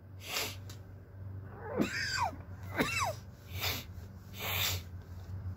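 A cat meowing twice, each meow a short rising-then-falling cry, between several short breathy puffs.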